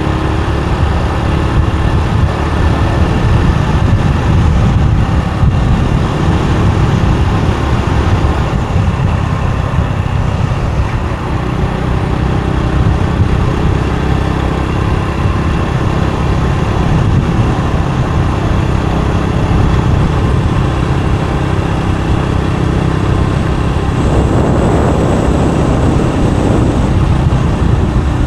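Motorbike riding on a road: steady engine and road noise under a heavy, low wind rumble on the microphone. Near the end a louder rushing noise with a faint high whine joins in.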